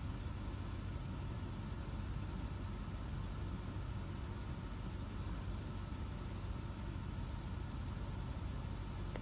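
Steady low mechanical hum, even in level, with a faint steady tone in it.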